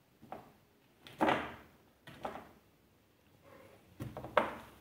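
A few short knocks and bumps, most likely from the cats moving against the plastic playpen. The loudest comes about a second in, and another sharp one near the end.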